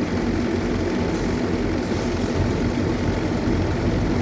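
Excavator's diesel engine running steadily, with a constant low hum.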